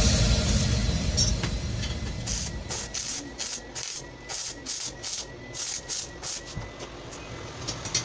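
Music fading out over the first couple of seconds, then a stick-welding arc on a square steel tube frame crackling and snapping in irregular sharp pops, two or three a second, over a low hiss.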